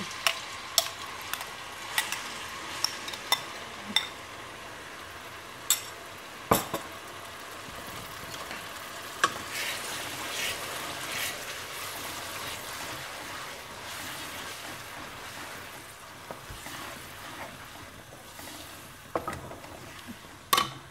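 Blended onion paste frying in hot oil in a stainless steel pan, sizzling steadily, with sharp taps and scrapes against the pan as it is scraped in and stirred with a wooden spatula. The taps come thickest in the first few seconds and again near the end.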